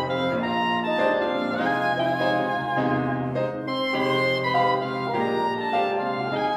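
Clarinet, bassoon and piano playing classical chamber music together. The clarinet carries a moving melody over a sustained low bassoon line.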